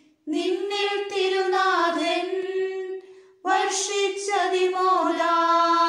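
Unaccompanied high voices singing a Malayalam hymn in two phrases, with a short break for breath about three seconds in.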